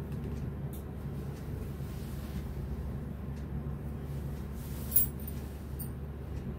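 Steady low room hum, with one short sharp sound about five seconds in and a couple of faint ticks from silk fabric being handled.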